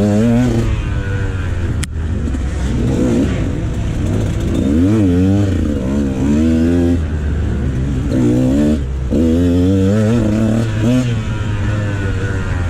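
Dirt bike engine revving up and falling back again and again as the bike is ridden, with a sharp click about two seconds in.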